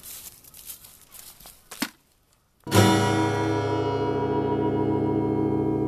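Acoustic guitar music in a country-folk style, starting with a strummed chord about two and a half seconds in and ringing on steadily. Before it come a few faint clicks and a moment of silence.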